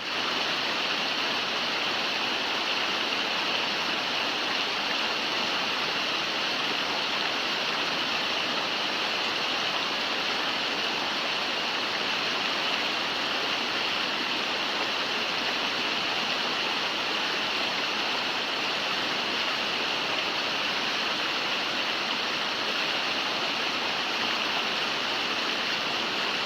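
River water flowing and rushing over rocks, a steady, even rush.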